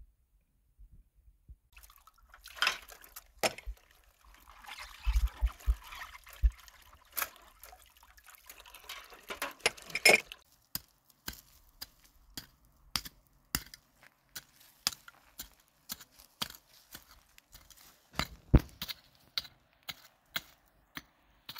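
Tap water splashing into a metal basin while dishes are scrubbed and clink against it, for roughly the first half. Then a steady series of sharp knocks, about one and a half a second, as a short-handled hoe chops into the soil.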